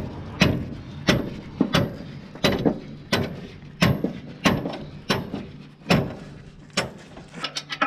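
Ratchet wrench tightening a nut on a combine harvester, clicking with each back-swing about twice a second, then a quick run of clicks near the end.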